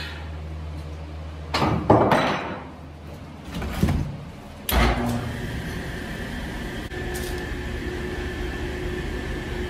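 Highland Park lapidary slab saw with a 24-inch diamond blade: loud sliding and knocking sounds as its carriage is backed up by hand, then a thump about five seconds in and a steady running hum with a thin whine from the saw.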